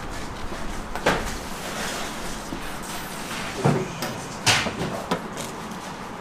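Four or five sharp knocks and clatters, the loudest about a second in and near the middle, over a steady kitchen background noise.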